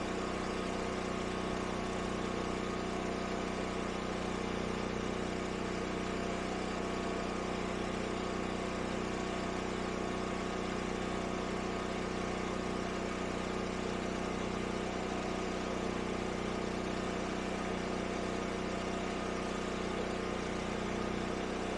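Predator 10,000-watt portable generator's engine running at a steady, unchanging speed.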